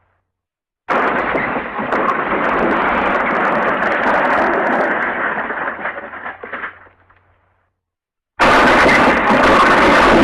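Cartoon crash sound effect: a loud smash that begins suddenly about a second in, runs on as a crackling, rumbling crash for about six seconds and fades out. Near the end a loud steady rushing noise cuts in abruptly.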